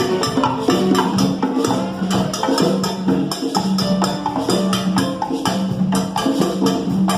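Salsa music with a dense, steady beat of sharp percussion strikes over repeating low held notes.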